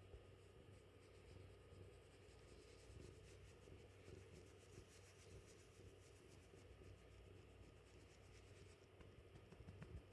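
Near silence, with faint rapid scratching through the middle.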